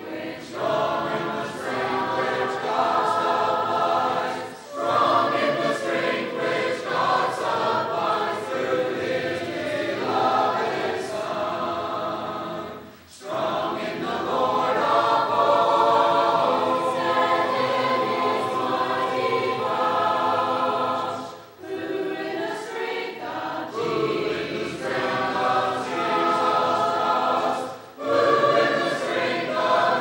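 A choir singing a hymn a cappella, in sung phrases separated by short pauses.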